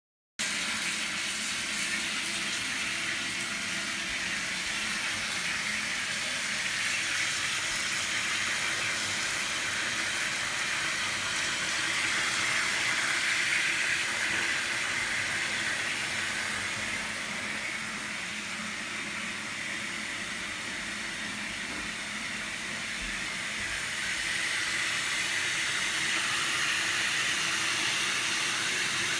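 Water running steadily into a bath, a continuous rush that swells a little at times.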